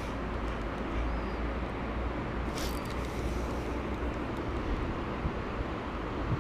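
Steady low rumble and hiss of wind buffeting a body-worn camera's microphone, with a brief rustle of clothing against it about two and a half seconds in.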